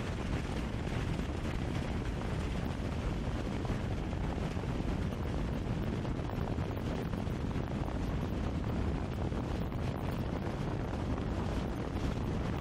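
Steady rush of wind and tyre noise picked up by a camera mounted on the outside of a car driving at highway speed.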